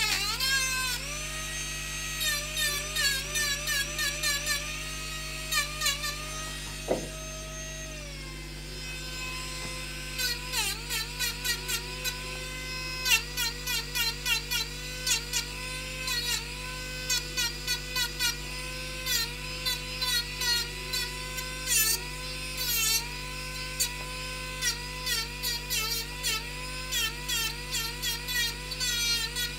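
Handheld rotary carving tool running at high speed. Its whine dips in pitch briefly, again and again, as the bit bites into the wood.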